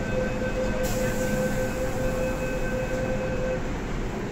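MTR C-train standing at the platform with its doors open: a steady tone with a couple of fainter higher overtones over the hum of the train and station. The tone cuts off about three and a half seconds in.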